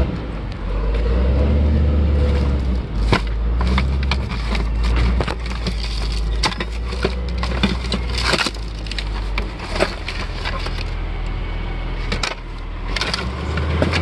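Loose junk parts clattering in a cardboard box as a hand rummages through them: a string of sharp knocks, clinks and rattles of metal, glass and plastic. A low rumble runs underneath for the first half.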